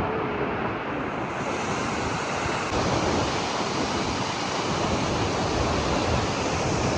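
Waterfall: a steady, dense rush of falling water, growing a little brighter a little over a second in.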